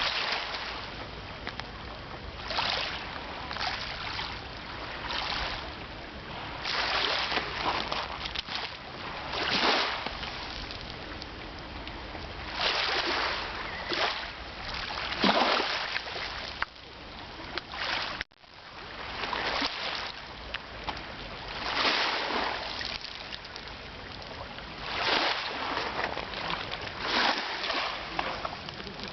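Small sea waves breaking and washing on the shore, a swell of splashing hiss every one to three seconds, with a brief drop-out in the sound about two-thirds of the way through.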